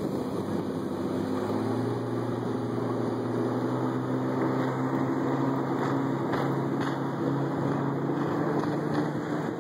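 Motorboat engine running steadily at speed while towing, with wind and water rushing past.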